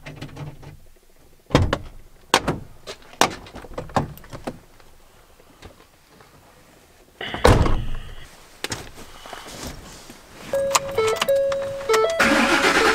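Pickup truck door handled and opened, with several sharp knocks and a heavy thunk as someone climbs into the cab. A dashboard chime follows, then the starter cranks the engine as the key is turned near the end.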